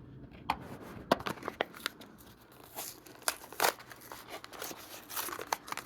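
A Matchbox car's blister-card package being torn open by hand: cardboard tearing and the plastic blister crinkling, in irregular clicks and crackles.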